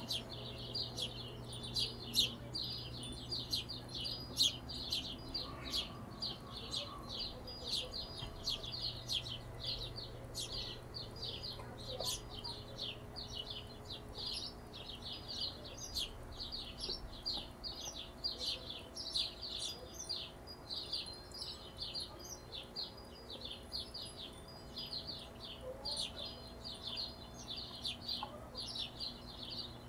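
Hummingbirds chittering: a rapid, unbroken stream of short high chips, several a second, over a faint steady low hum.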